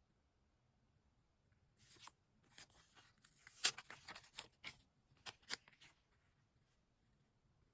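Crisp crackling and rustling of paper stationery being handled, peeled or torn, in a run of sharp clicks that lasts about four seconds, with the loudest snaps near the middle and about two-thirds of the way through.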